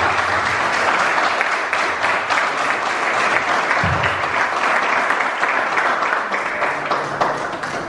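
Small audience applauding in a room, a dense patter of hand claps that thins out near the end.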